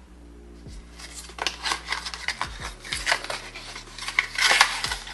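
Cardboard perfume box being handled and opened by hand: scraping, rubbing and clicking of the card and packaging. The sounds start about a second in and are loudest near the end.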